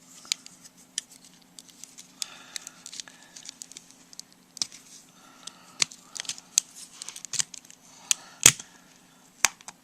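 Plastic clicks and snaps of a flip phone's case being pried apart, with short scraping and creaking between them; the loudest snap comes near the end as the halves come free.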